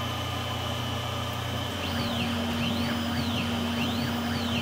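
Tormach PCNC 770 CNC mill running a program with a steady hum. About two seconds in, the axis motors start moving and a high whine begins that rises and falls in pitch over and over as the 3/8 end mill recuts a circular pocket.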